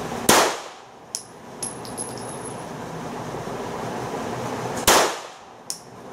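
Two handgun shots, about four and a half seconds apart, each followed by a few lighter clinks.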